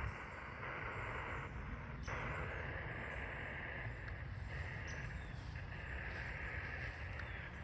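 Spirit box sweeping through radio stations: a steady static hiss that shifts abruptly in steps as it scans.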